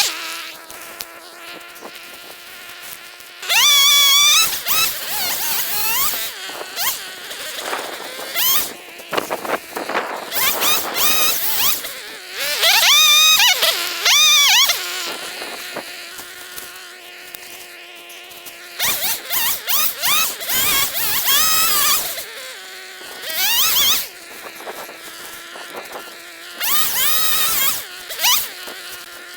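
Small two-stroke saw, most likely a chainsaw cutting limbs, revved hard several times with quieter idling in between; the pitch climbs and wavers with each rev.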